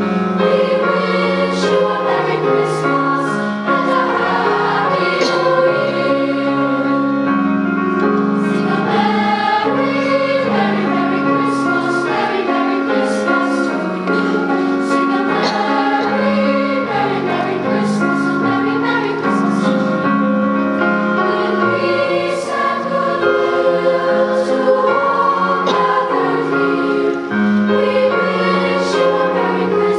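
Mixed-voice middle school choir singing a Christmas choral piece, several voice parts holding sustained chords, with the crisp 's' sounds of the words standing out.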